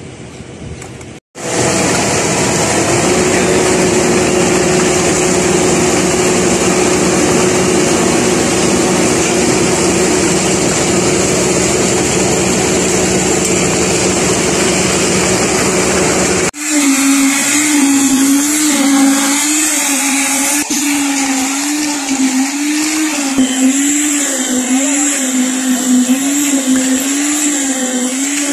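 Motorized machinery running at a concrete paving site: a steady, dense motor noise with a constant hum, then after a cut about halfway through, a motor whose pitch wavers up and down about once a second.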